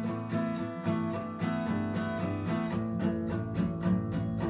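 Acoustic guitar strummed in a steady rhythm, its chords ringing.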